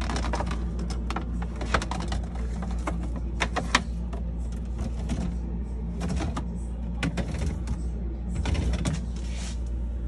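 Plastic refrigerator bins and a crisper drawer being handled and slid out, a string of light clicks and knocks over a steady low hum.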